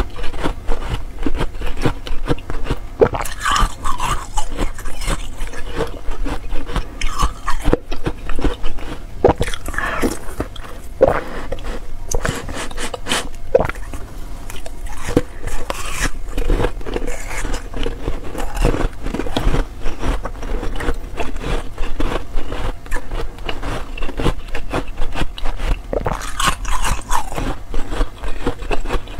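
Close-up crunching and chewing of soft frozen cotton (slush) ice bitten from a slab: many rapid, crisp crunches that run on throughout.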